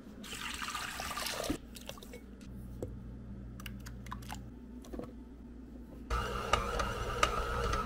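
Bread ingredients going into a stainless steel mixing bowl: a pour of liquid, then a few small clicks and knocks. In the last two seconds a louder steady hiss with a faint hum comes in.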